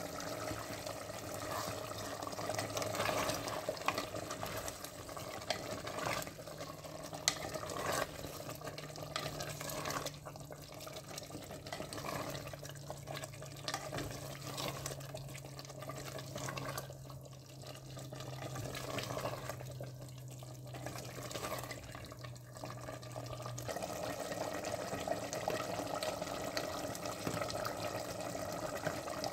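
Liquid chicken korma sauce bubbling in a clay pot (matka) while a spoon stirs it, with scattered sharp knocks of the spoon against the pot. A steady low hum runs underneath from about six seconds in until a few seconds before the end.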